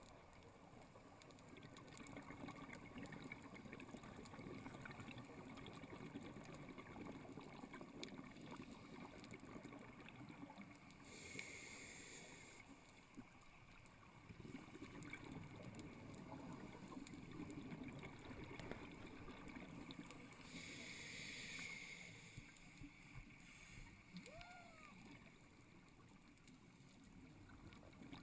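Underwater breathing of a scuba diver through the regulator: two short hisses of inhaling, about ten seconds apart, with a low rumble of exhaled bubbles between them.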